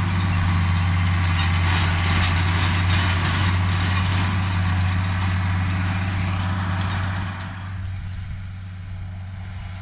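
An engine idling steadily close by, its low hum unchanging. Over it runs a wider rushing noise that dies down about three-quarters of the way through.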